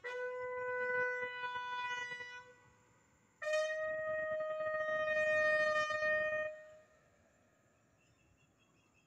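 Bugle call sounded as military funeral honours: one long held note, then after a short pause a higher note held about three seconds before it dies away.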